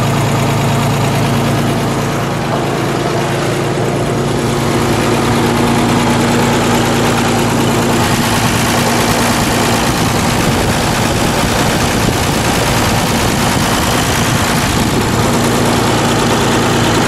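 1946 Oliver 70 Row Crop tractor's six-cylinder engine idling steadily. The sound turns rougher and noisier for several seconds in the middle, then settles back to its steady hum.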